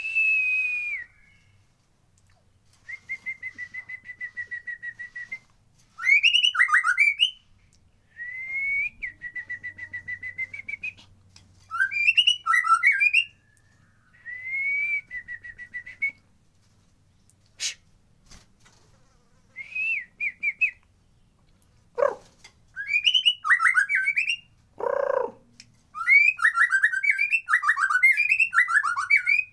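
White-rumped shama (murai batu) singing: long clear whistles around one pitch with a fast flutter, alternating with rapid, varied tumbling phrases, in bursts with short pauses between. A few lower, harsher notes come later, and there is a single sharp click partway through.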